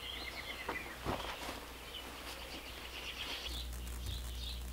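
Songbirds chirping outdoors in short repeated calls, with a brief trill at the start and a couple of soft knocks about a second in.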